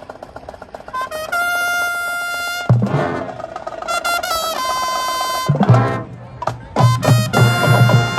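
High school marching band playing: the brass holds sustained chords, broken up by heavy drum hits. Near the end the low drums settle into a steady beat under the horns.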